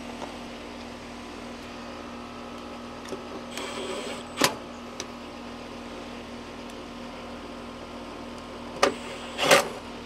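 Clicks and rattles of a replacement single-pole contactor and hand tools being handled: a short rattle ending in a sharp click about halfway through, and two more sharp knocks near the end. A steady electrical hum runs underneath.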